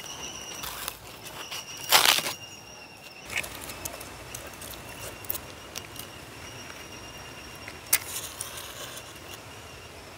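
Small dry twigs and sticks being handled and broken for a wood stove fire, with a few sharp cracks and crackles, the loudest about two seconds in. Insects keep up a steady high whine behind.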